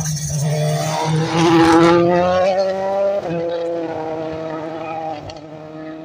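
Citroën C3 rally car accelerating hard out of a gravel hairpin. The engine's pitch climbs and is loudest about two seconds in, breaks off briefly a little after three seconds, then runs on steadily and fades as the car drives away.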